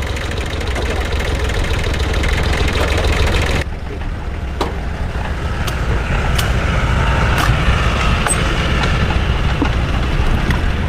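An engine running at idle, a steady low rumble, with a few sharp clicks in its second half.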